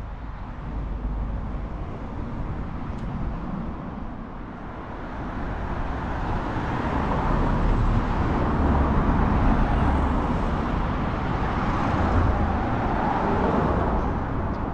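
Street traffic: the engine rumble and tyre noise of a passing vehicle, swelling from about a third of the way in and staying loud through the second half.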